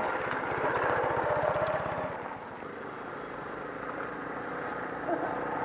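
Single-cylinder trail motorcycle engine running at low revs as the bike rides past, with evenly spaced firing pulses that are loudest for about two seconds, then quieter as it moves off.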